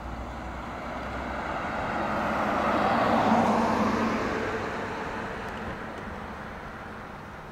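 A road vehicle driving past close by, its tyre and engine noise swelling to a peak about three seconds in and then fading away.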